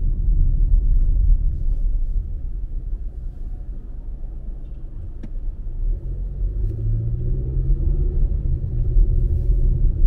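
Car cabin rumble from the car's own engine and tyres on a wet road. It eases off for a few seconds as the car slows at a traffic light, then the engine note rises from about six seconds in as the car pulls away and speeds up.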